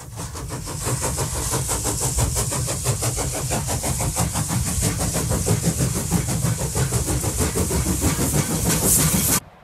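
Train noise: a railway engine running with a heavy low rumble, hiss and rapid regular pulsing. It builds over the first second and cuts off abruptly near the end.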